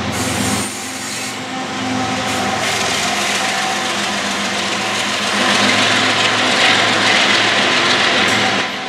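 Canadian Pacific diesel freight locomotive passing with a steady engine drone, followed by covered grain hopper cars rolling by on the rails. The rolling noise gets louder about five and a half seconds in and drops off sharply near the end.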